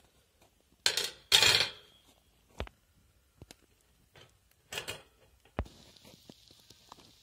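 Stainless steel wire grill basket rattling and clinking as it is opened and handled: two loud metal rattles about a second in, then a few lighter knocks and clinks as marinated fish pieces are laid on the mesh. A faint steady hiss sets in near the end.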